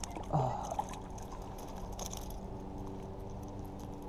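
Water splashing and trickling as a small smallmouth bass hooked on a jerkbait thrashes at the surface of a shallow river and is lifted out by hand, with a louder splash about a third of a second in.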